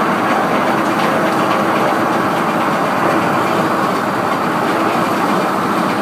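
Heavy sawmill machinery running steadily and loudly, a dense, even mechanical rattle with no pauses.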